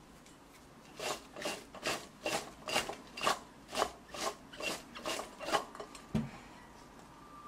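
Salted cucumber spears being tossed by hand in a glass mixing bowl, rustling and rubbing against each other and the glass in about eleven quick strokes, roughly two a second. This is the salting step for quick cucumber kimchi. A single soft, low thump follows near the end.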